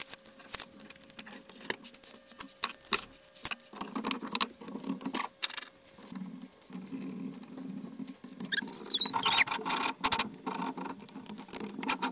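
Hand assembly of a 3D-printed cart: plastic wheels, gears and brackets and aluminium extrusion clicking, tapping and clattering as parts are handled and fitted, with a short squeak about two-thirds of the way through.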